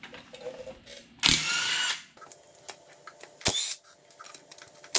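Cordless impact wrench run in one short burst of under a second, with a rising whine, backing out a pinion carrier bolt on a Corporate 14 bolt axle. A single sharp metallic click follows about two seconds later.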